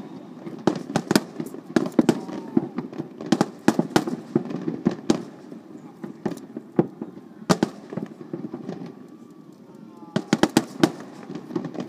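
Aerial fireworks shells bursting: rapid clusters of sharp bangs and cracks, thinning out about eight seconds in before a fresh volley near the end.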